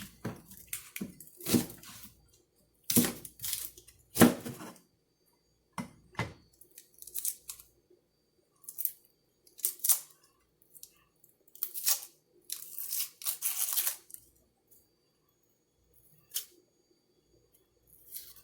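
Half an onion being peeled and cut: a series of short, irregular tearing and crackling sounds with pauses between them.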